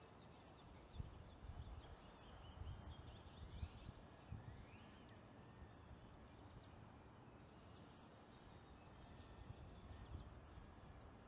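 Quiet outdoor ambience with faint distant birds calling: a quick run of short high chirps a couple of seconds in, then a brief rising note. Soft low rumbles come and go beneath.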